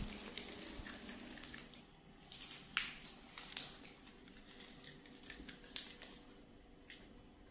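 Faint, scattered light taps and sharp clicks of footsteps on a hard tiled floor, a few of them louder, about three seconds in and again near six seconds.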